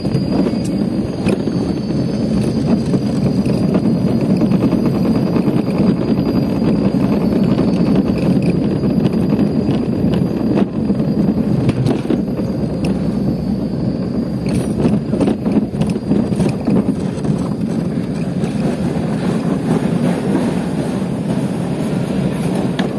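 Steady rumble of a luge cart's wheels rolling down the track, with a scatter of sharp knocks from bumps, most of them about two-thirds of the way through.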